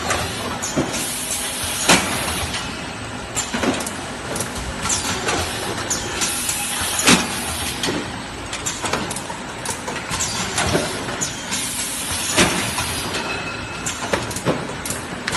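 One-piece carton packaging machine running: a steady clatter of knocks and clacks, with a sharp clunk about every five seconds and bursts of hissing air from its pneumatic cylinders.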